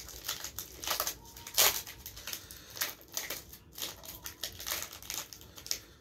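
Foil wrapper of a Pokémon card booster pack crinkling and crackling as it is worked open by hand, in quick irregular snaps.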